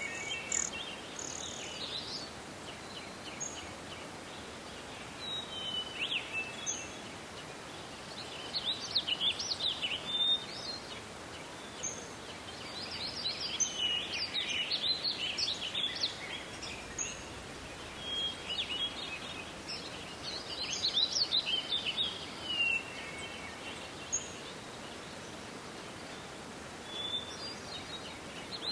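Birds chirping and calling in scattered clusters of short, high chirps and whistles over a steady background hiss.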